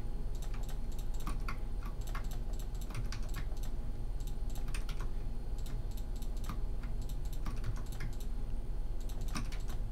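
Computer keyboard keys and mouse buttons clicking in irregular taps as shortcuts are pressed, over a steady low hum.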